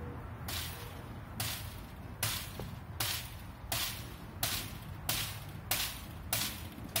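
Sledgehammer blows on a rebar and chicken-wire dome frame, about ten sharp strikes, evenly spaced a little under a second apart, knocking the misshapen rebar into shape.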